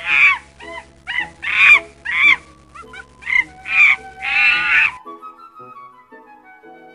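About eight short, high-pitched animal calls in quick succession, like a sound effect, each with a rising-and-falling pitch, over soft background music. The calls stop about five seconds in and the music carries on alone.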